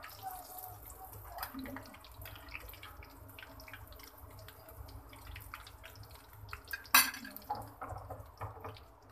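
Breaded chicken kababs on sticks shallow-frying in hot oil in a steel pan: a steady sizzle of small crackles and pops. One sharp knock about seven seconds in, as tongs turn the kababs.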